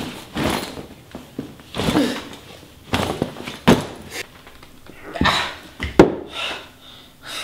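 Rustling and knocking as a person handles a duffel bag and drops it on a tiled floor, then a hard thud about six seconds in as he lands on the floor himself.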